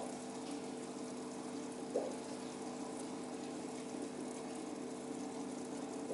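Aquarium equipment running: a steady pump hum with water trickling and bubbling, and one short blip about two seconds in.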